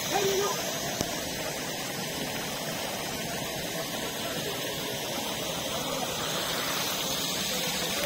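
Steady rushing noise, with a brief low hooting tone right at the start.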